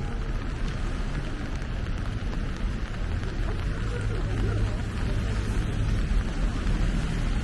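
Steady rain falling, with a low rumble of street traffic underneath.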